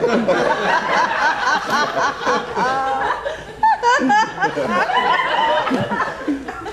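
Audience laughing, many voices overlapping.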